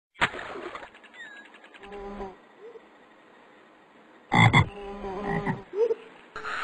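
Frog croaking: several separate croaks with pauses between them, the loudest about four seconds in.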